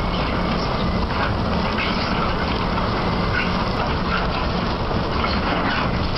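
Bucket wheel excavator at work: a steady, dense low rumble from the machinery, with short high squeaks scattered through it.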